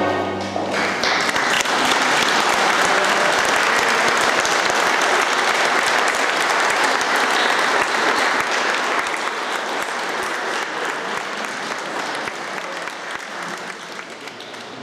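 Audience applauding: dense clapping that sets in a moment after a held sung note with piano dies away, then gradually thins and fades toward the end.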